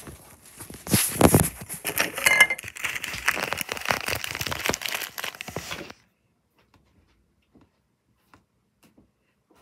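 Crackling, rustling handling noise of a phone being gripped and rubbed against its microphone, full of small clicks, for about six seconds; then it cuts off suddenly, leaving only a few faint ticks.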